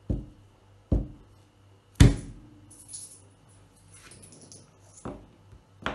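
A hand slapping down on a cloth mat over a table, five dull thumps, the loudest about two seconds in. Light metallic clinks of coins come with that slap and in the pause after it.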